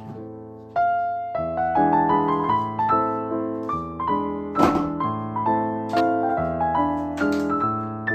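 Background piano music: notes struck one after another and fading, with a few soft knocks from handling, the loudest about four and a half seconds in.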